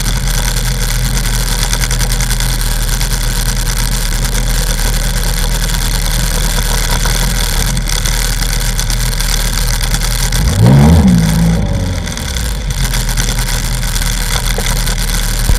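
Sea-Doo XP jet ski engine idling steadily, with one short blip of the throttle about ten and a half seconds in, its pitch rising and then falling back to idle.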